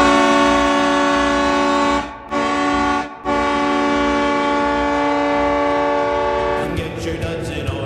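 Kleinn 730 Demon train-style air horn sounding a loud multi-tone chord in three blasts: a long one, a short one, then a longer one. Near the end it gives way to the goal song starting up.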